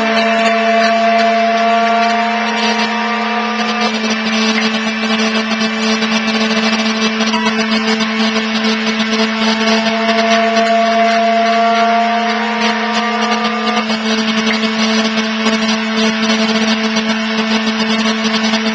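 Experimental drone or noise music: a steady low drone with higher tones that slowly slide upward and start over twice, over a dense wash of hiss.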